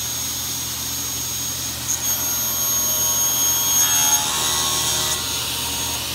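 Industrial sliding table saw running steadily, with a blade whine that rises from about two seconds in as the blade cuts through a board, easing again about five seconds in.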